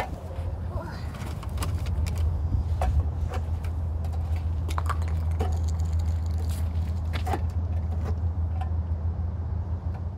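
Ride-on sand digger worked by hand, its metal arm and scoop giving scattered clinks, knocks and scrapes in the sand, over a steady low rumble.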